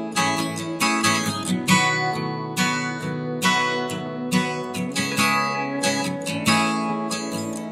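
Background music: a strummed acoustic guitar playing a steady rhythm of chords.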